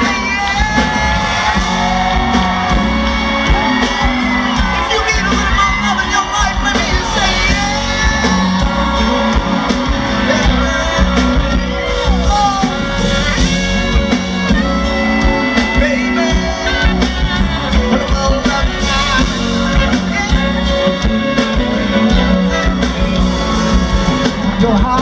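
Live R&B band playing on stage, with people in the audience screaming and whooping over the music.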